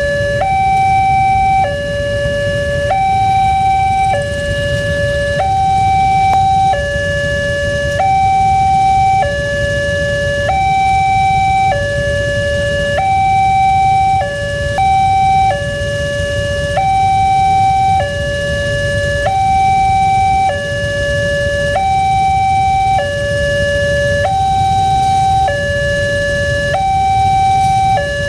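Railway level-crossing warning siren, the Alkmaar model common in Indonesia, sounding a steady two-tone high–low alternation with each tone held a little over a second. A low rumble runs underneath.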